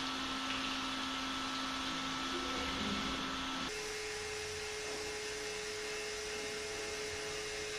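Steady electrical hum over a soft hiss; the hum's pitch jumps higher about four seconds in.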